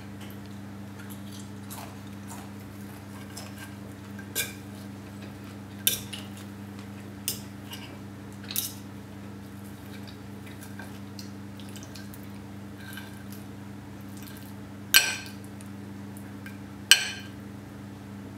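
Metal knife and fork clinking against a ceramic plate every few seconds while food is cut, the two loudest clinks coming near the end. A steady low hum runs underneath.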